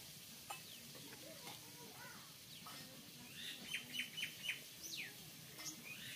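Birds chirping: a quick run of four short falling whistled notes about the middle, among scattered sweeping chirps, with a few faint ticks.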